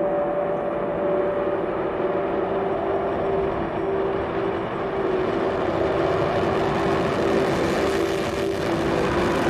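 Steady roar of a rocket's exhaust, which fills out and grows brighter about halfway through, over a held low tone.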